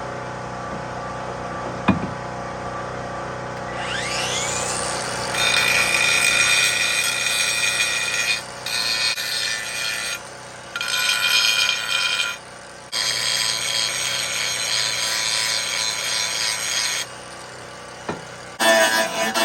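An angle grinder winds up with a rising whine about four seconds in, then grinds metal in several spells with short pauses, over a steady machine hum. Guitar music comes in near the end.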